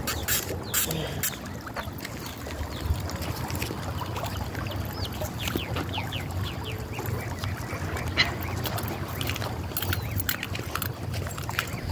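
Outdoor ambience of a flowing creek with wind buffeting the microphone as a steady low rumble. There are sharp handling clicks near the start and end, and a quick run of high chirps about halfway through.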